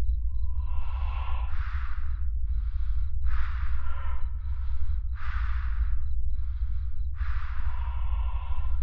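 A person breathing heavily and raggedly, about one breath a second, over a steady deep low drone.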